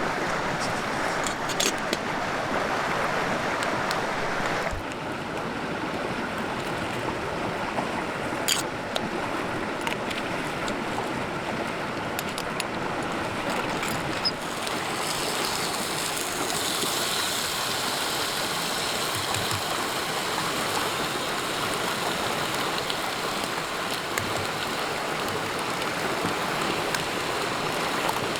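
River water running steadily over stones, with a few sharp clicks; the sound of the water changes abruptly twice, about 5 and 14 seconds in.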